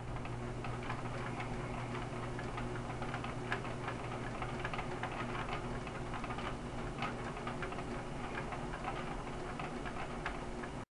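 Long 900 tractor's diesel engine idling steadily, with a busy, irregular ticking over the low hum.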